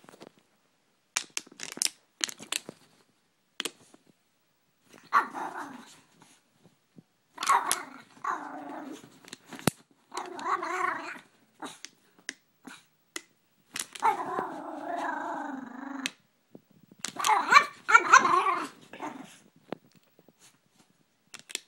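Brussels Griffon growling and barking in five bouts, the longest about two seconds, agitated by a water bottle she dislikes. A few sharp clicks come first.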